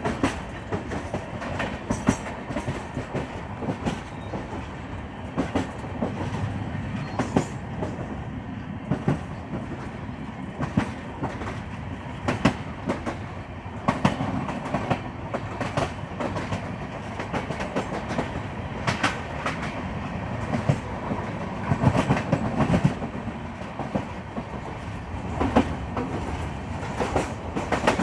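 Train running on the track: a steady running noise with sharp wheel clicks every second or two, clickety-clack over rail joints.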